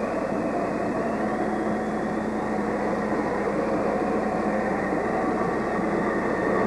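Tornado wind noise from the film's soundtrack: a steady, dense rush of wind with no breaks, under a faint steady hum.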